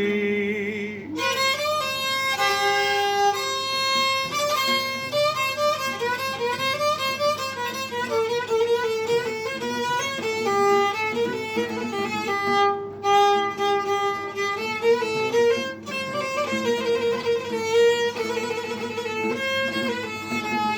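Violin playing a fast, ornamented melody in an instrumental break of an Arabic song, just after a male singer holds his last word about a second in.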